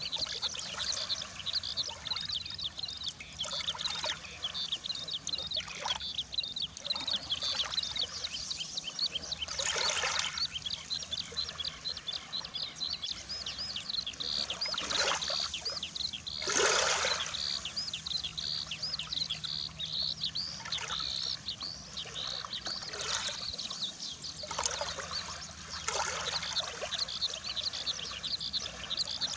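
Small sea waves washing against the shore, several of them louder swells, under a continuous high-pitched twittering of many small birds.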